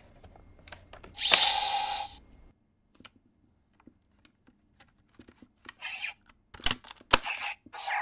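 Plastic clicks of CSM V Buckle and Dragvisor toys being handled, with a loud electronic sound effect from the buckle about a second in that cuts off sharply. Later come clicks and two sharp clacks of the Dragvisor gauntlet as a card is loaded and the visor is snapped, with short electronic tones near the end.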